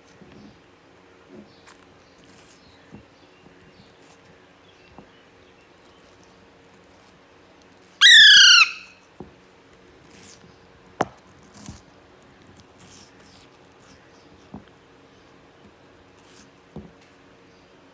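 Young Alexandrine parakeet giving one loud, harsh squawk a little under halfway through, amid soft clicks and taps as it eats apple. A low steady hum sits underneath.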